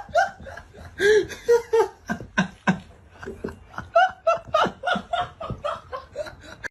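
A person laughing in a run of short, pitched bursts, with the loudest peaks near the start, about a second in and about four seconds in.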